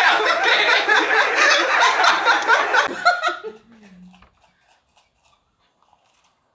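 Loud hearty laughter of a man, in quick repeated bursts, stopping suddenly a little over three seconds in.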